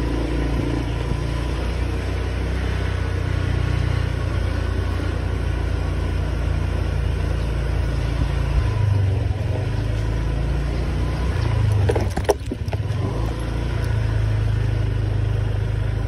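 Motor scooter's small engine running steadily at low riding speed, with a low wind rumble on the microphone. There is one sharp knock about twelve seconds in.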